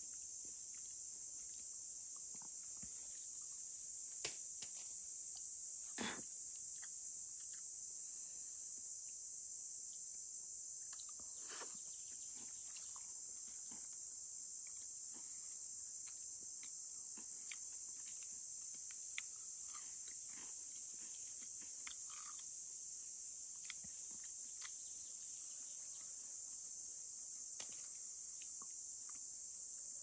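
A high-pitched insect chorus, crickets or similar, trilling steadily, with scattered small clicks and taps throughout; the loudest taps come about four and six seconds in.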